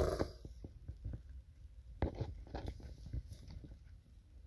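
Faint scattered clicks and light rustles close to the microphone, with a small cluster of them about two seconds in.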